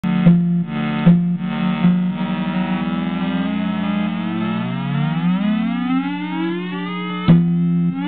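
Music From Outer Space Weird Sound Generator, a DIY analog synthesizer, putting out a steady buzzing drone rich in overtones as its knobs are turned. The drone pulses on and off at first, then a second tone slowly rises in pitch over a few seconds, and near the end the sound switches suddenly back to a pulsing drone.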